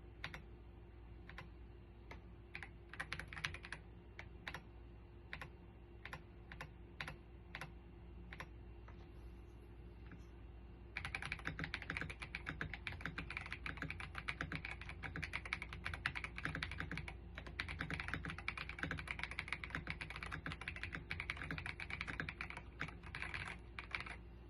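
Keystrokes on an RK Royal Kludge R98 Pro gasket-mounted mechanical keyboard with PBT keycaps. At first it is scattered single key presses with a few short clusters, then about eleven seconds in it turns to fast, continuous typing.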